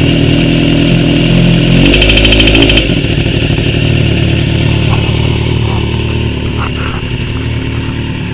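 1986 Yamaha Fazer 700 (FZX700) V4 engine running, given a brief rev about two seconds in with a fast, even ticking rattle over it, then dropping back and settling toward idle. The owner puts the noise that shows when it is revved, and not at idle, down to a loose cam chain or a failing cam chain tensioner.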